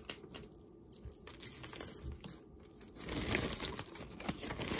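Plastic bag crinkling and rustling as jewelry is handled, with scattered light clicks; the rustling gets busier about three seconds in.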